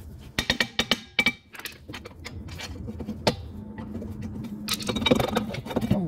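Metal knocks and clinks as a Club Car golf cart's rear brake drum is worked loose and pulled off the axle hub: a cluster of knocks in the first second or so, one sharp knock a little past three seconds, and busier clinking near the end, over a steady low hum.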